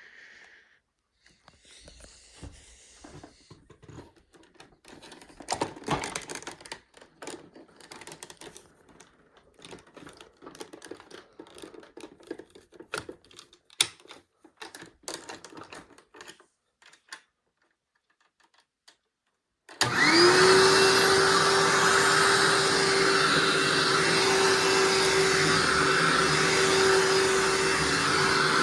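Scattered light clicks and rattles of handling, then, about two-thirds of the way in, a 2011 Hoover WindTunnel SP upright vacuum switches on: its motor winds up with a quick rising whine and settles into a loud, steady run with a constant hum.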